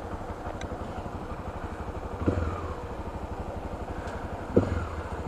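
Honda XRE 300's single-cylinder engine idling with a steady low pulse, swelling briefly twice, about two seconds in and near the end.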